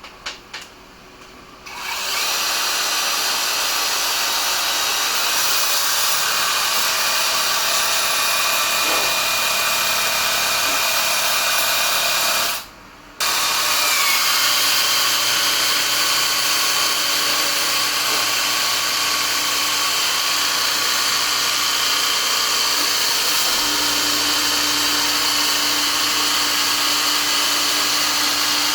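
Pressure washer (car washer machine) running, a steady motor whine over a hiss. It starts about two seconds in, cuts out for about half a second near the middle, then starts again and runs on.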